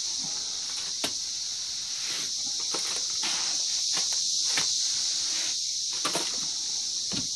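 A steady, high-pitched insect chorus, with scattered short scrapes and knocks as a wooden darby is worked over a wall of wet mud.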